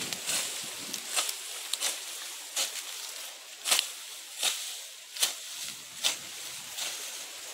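Long-handled hoe chopping and scraping through grass and weeds into dry, hard soil: about ten short, scratchy strokes at a steady working pace.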